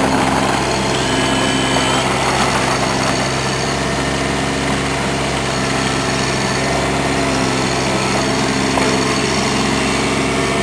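Bobcat 323 mini excavator's diesel engine running steadily while the arm digs.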